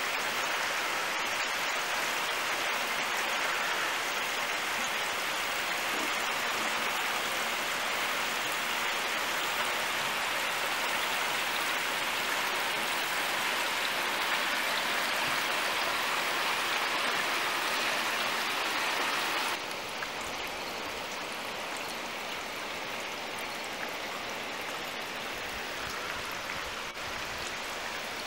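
Steady hiss of falling rain. About two-thirds of the way through it drops abruptly to a softer, steady hiss.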